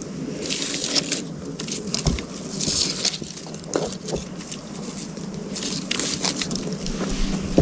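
Campfire crackling, with irregular small pops and snaps.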